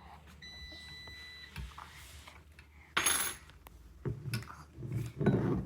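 Strider balance bike parts and tools being handled during assembly: clinks and knocks, with a loud short scraping rustle about three seconds in and a cluster of clatters near the end. A faint steady high tone sounds in the first second or so.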